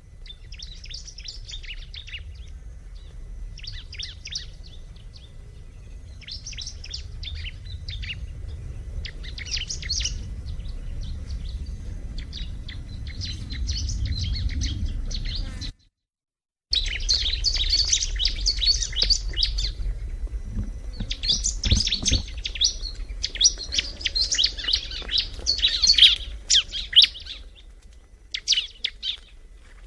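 Bar-winged prinia (ciblek) singing: bursts of rapid, high, scratchy chirping phrases, with a low rumble of background noise underneath. The sound drops out completely for about a second a little past halfway.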